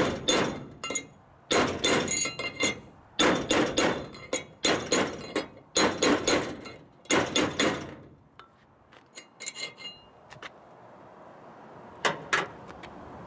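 Hammer blows on metal, one or two a second, each with a short ring, driving a new bearing part home on a Dana 44 front axle. Transmission parts stand in for a press kit as the driver. After about eight seconds come lighter taps, then one more hard blow near the end.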